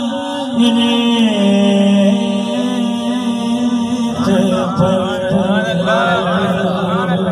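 A man singing an Urdu devotional song unaccompanied into a microphone, amplified through a PA. He holds long, steady notes, then sings wavering, ornamented runs from about four seconds in.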